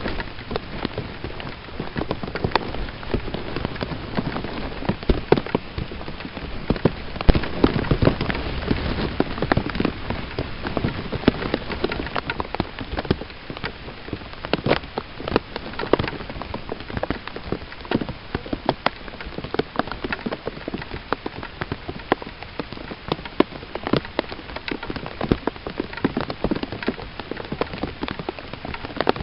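Steady rain falling, with many close drops striking in sharp, irregular taps.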